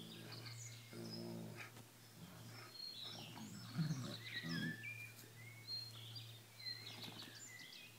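Dogs growling at play, a German Shepherd and a Doberman puppy: short low growls at the start and about a second in, then a louder, rougher growl about four seconds in. Small birds chirp throughout.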